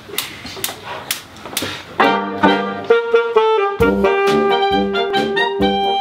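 Four even clicks counting in, then about two seconds in a brass and woodwind band of trombone, tuba, euphonium, saxophone and clarinet comes in together, playing the opening of a Romani-style medley.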